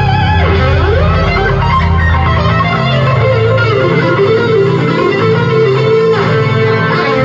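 Live rock band with a lead electric guitar playing bending, sliding phrases over bass and drums. About three seconds in, the bass and low end drop away, leaving the guitar more exposed.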